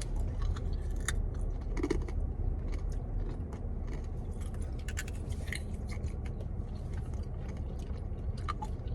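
Close-up chewing and biting on chicken wings, with scattered small clicks, crackles and rustles of the food packaging, over a steady low hum inside the car.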